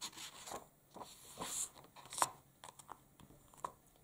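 Pages of a thin softcover picture book being turned by hand: irregular paper rustling and crinkling, with a sharper crackle a little past two seconds in.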